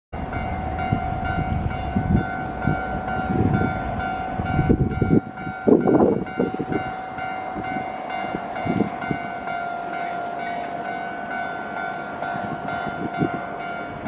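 Japanese level-crossing warning bell ringing steadily as an electronic alarm tone. For the first five seconds a train rumbles past on the rails, then the rumble stops abruptly. A short loud burst follows about a second later.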